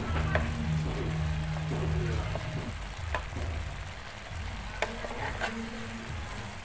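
Strips of coconut flesh bubbling and sizzling in a pan of boiling sugar syrup, stirred with a wooden spatula, which clicks sharply against the pan a few times.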